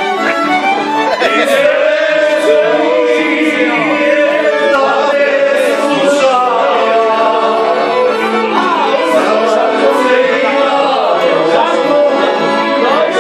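Live violin and accordion music played in the room, with singing over it.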